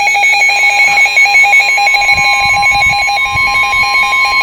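Weather radio emergency alert tones for a tornado warning: a fast pulsing two-pitch alarm, joined about a second and a half in by a steady high warning tone that holds.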